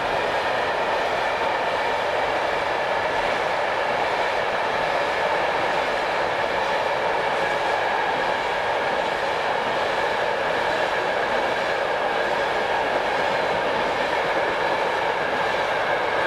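Train passing at steady speed: an unbroken rolling noise of wheels on rails, with a faint high ringing tone, holding at the same loudness throughout.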